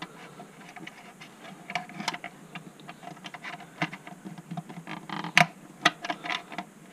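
Irregular small plastic clicks and taps from fingers working parts inside a Tiko 3D printer's clear plastic housing while the feed tube is fitted back on, with two louder sharp clicks a little past the middle.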